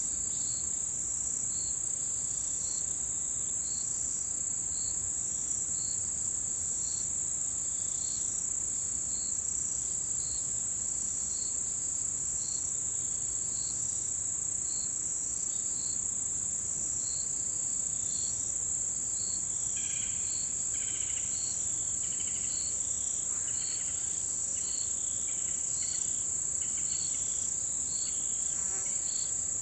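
A chorus of autumn insects: one keeps up a continuous high-pitched trill, while another chirps regularly about once a second. Fainter, irregular calls join in from about two-thirds of the way through.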